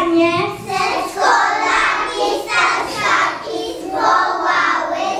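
Group of young children singing together, loose and not quite in unison, in phrases about a second apart.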